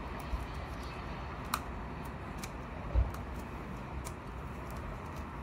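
Faint small clicks and handling noise from hands working a plastic wire-tap connector onto a motorcycle's accessory wire, with a dull thump about three seconds in, over a steady low background hum.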